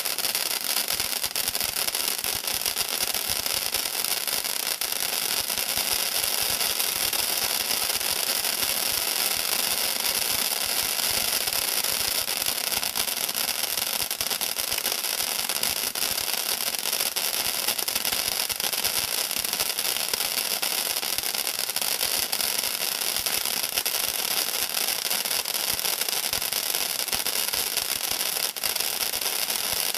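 Red Apple P3104 Fire Fighter ground fountain firework burning: a steady hiss of spraying sparks, with dense fine crackling running through it.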